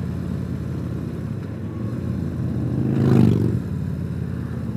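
Harley-Davidson Tri-Glide trike's 114 V-twin engine running steadily under way. About three seconds in its note rises and swells louder for a moment, then settles back.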